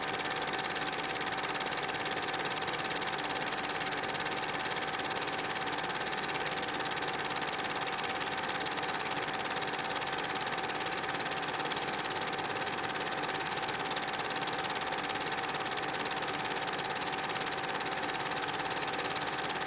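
Steady recording noise: an even hiss with a constant high-pitched whine and no separate events, typical of an old camcorder home video.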